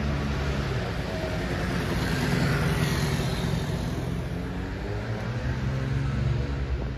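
A motor vehicle's engine running at low speed, a steady low drone that swells a little around the middle.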